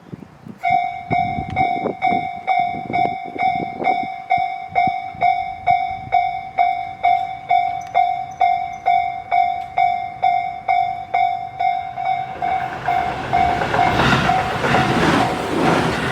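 Japanese level-crossing warning bell starting up about half a second in and ringing a steady, evenly repeating tone about twice a second, signalling a train's approach. From about twelve seconds in, the noise of a Tobu Noda Line train passing over the crossing grows under the bell and becomes the loudest sound near the end.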